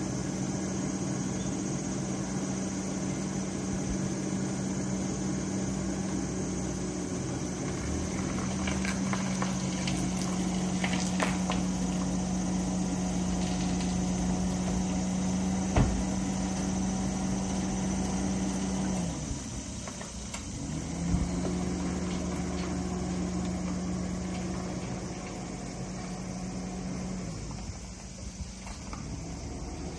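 A steady low mechanical hum, like a motor or engine running, that winds down about two-thirds of the way in, starts up again a second or so later, and stops near the end. A couple of short knocks stand out over it.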